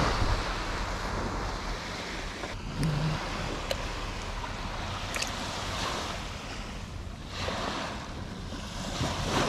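Surf washing up a sandy beach, a steady rushing noise that swells near the start and again around seven and a half and nine seconds, with wind buffeting the microphone.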